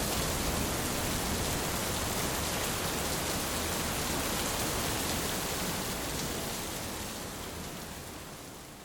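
Heavy rain pouring steadily, a dense even hiss, fading out over the last two seconds.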